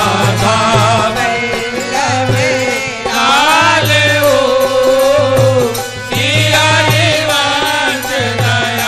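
Devotional name-chant (naam dhuni) music: a melody in long, wavering held notes over a steady drum beat.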